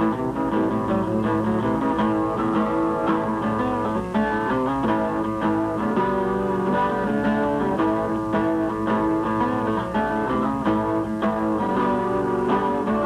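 Background music: plucked guitar playing a continuous run of notes.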